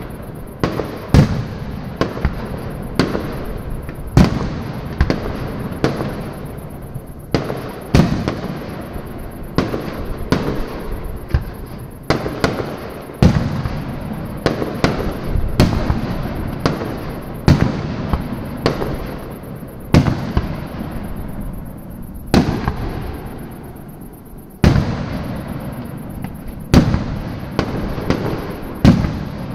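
Aerial firework shells bursting in a steady run of sharp bangs, about one a second, each trailing off in a rumbling echo that fills the gaps between them.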